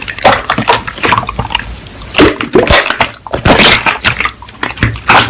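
Slime being squeezed and pressed by hand, with a wet squelching and a dense run of crackles and pops.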